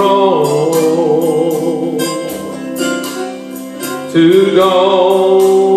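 Male voice singing a gospel song over instrumental backing with a steady beat, holding long notes with vibrato; the sung pitch drops to a lower held note about four seconds in.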